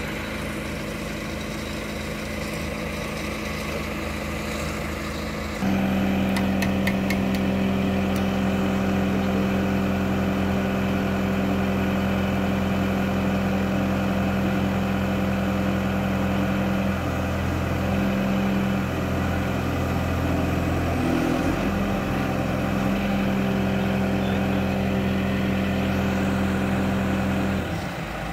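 A large boat forklift's engine running steadily; about six seconds in it picks up to a louder, steady run, with a few light clicks just after, and holds there until it drops back near the end.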